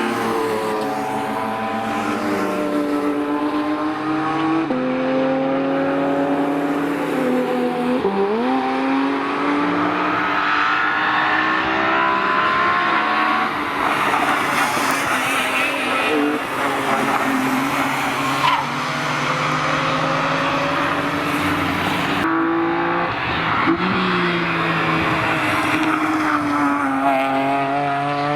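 BMW E46 M3 engines at high revs on track, their pitch climbing under acceleration and dropping suddenly at each upshift, then climbing again.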